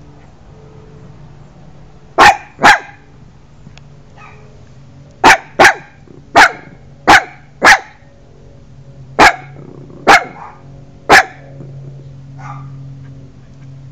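A puppy barking about ten times, short sharp barks that come in uneven bunches of two or three with pauses between.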